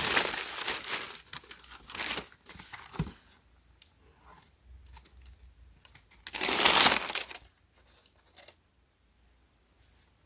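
Clear plastic bag and tissue paper crinkling and rustling as a shoe is pulled out of its wrapping, in bursts through the first couple of seconds, with another loud burst a little past halfway, then only faint handling.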